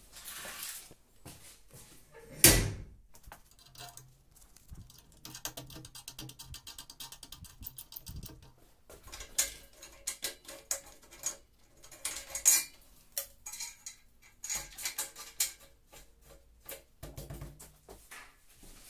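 Metal parts and tools clanking and knocking during hand work at a workbench, with one loud knock a few seconds in and a fast, even run of ticks in the middle.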